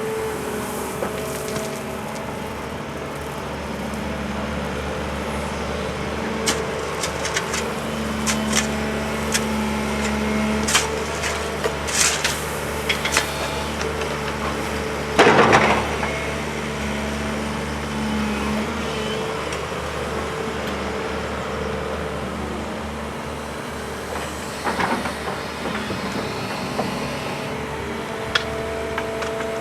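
Heavy diesel excavator engine running steadily under load, with scattered metallic clanks and knocks from the working machine and a short, loud hiss about fifteen seconds in.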